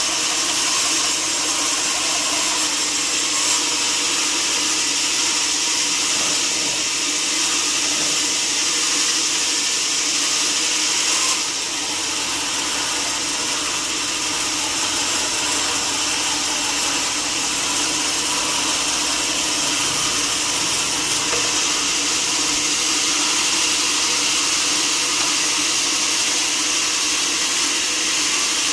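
Sawmill saw running steadily as it cuts through timber, a loud continuous whine and hiss, dipping slightly about eleven seconds in.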